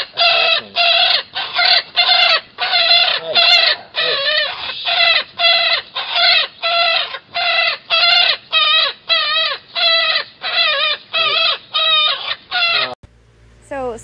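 Baby pileated woodpecker calling over and over, short loud calls about two a second, stopping abruptly about a second before the end.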